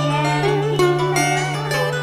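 Instrumental vọng cổ accompaniment: plucked strings playing a melody with bent, wavering notes over a steady low drone.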